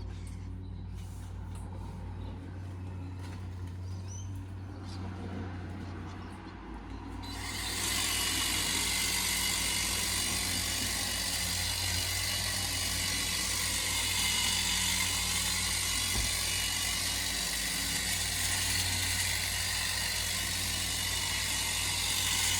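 Ego cordless telescopic hedge trimmer running with a steady low hum. About seven seconds in, a much louder steady hiss with faint high whining tones sets in and holds.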